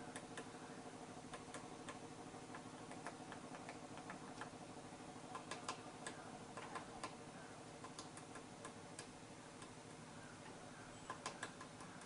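Himalayan woodpecker pecking at a bare branch: faint, sharp, irregular taps, one to three a second, thinning out late on, then a louder pair near the end.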